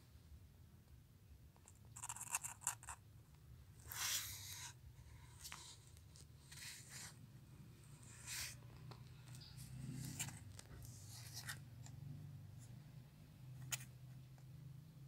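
Faint, scattered scratchy rustles and scrapes, a few seconds apart, over a low steady hum; no meows.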